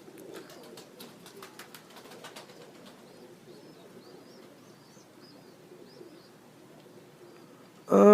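Pigeons cooing softly, with a quick run of sharp claps in the first few seconds and faint high chirps after. A loud, drawn-out call falling in pitch cuts in at the very end.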